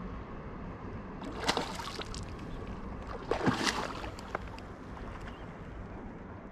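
A hooked trout splashing and thrashing at the water's surface during the fight, in two bursts: about a second and a half in, and again about three and a half seconds in.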